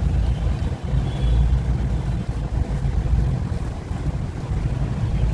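Steady low rumble of air buffeting the microphone, with no clear sound above it.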